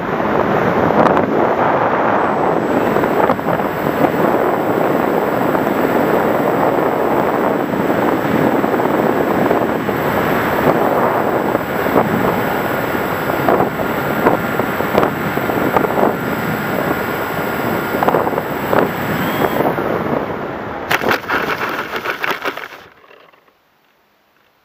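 Air rushing over the microphone of an RC plane's onboard camera in flight, with a faint steady high whine from its electric motor. The whine stops about twenty seconds in, a few sharp knocks and rustles follow as the plane comes down in the grass, and then the sound drops to near silence.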